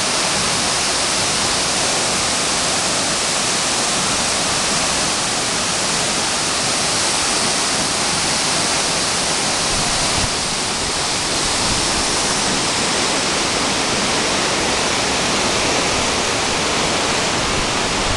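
A waterfall's steady, loud rush of water cascading down a rock face into a plunge pool.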